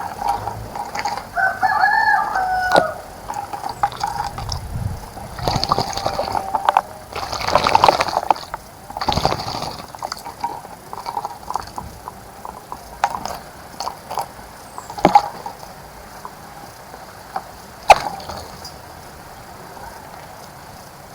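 A rooster crows once, about a second in. Then comes a bird splashing in a bird bath, in several bursts of flicked water over a few seconds, with a couple of sharp clicks later on.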